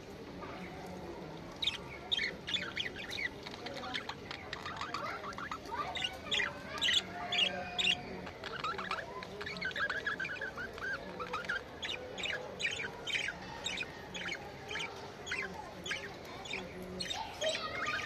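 Budgerigars chirping and chattering: a run of quick, sharp chirps starting about two seconds in, with a warbling stretch in the middle.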